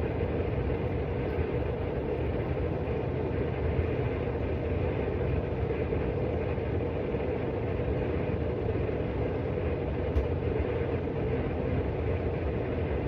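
Steady, unchanging mechanical droning noise with a low hum under it, like a running fan or motor, with one light tap about ten seconds in.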